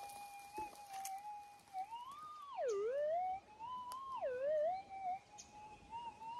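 Metal detector's steady threshold hum, broken about two seconds in and again near four seconds by target signals that swoop up in pitch and then drop sharply low: the detector sounding off on a metal target in the dig.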